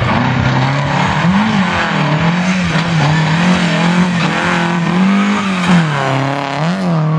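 Rally car engine at high revs, its pitch repeatedly climbing and dropping with throttle lifts and gear changes through a series of corners.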